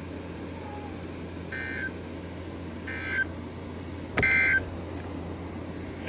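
Weather radio speaker sounding three short bursts of buzzy digital data tones about a second and a half apart: the SAME header that opens a NOAA Weather Radio Required Weekly Test. The third burst is the loudest and begins with a sharp click, over a steady low hum.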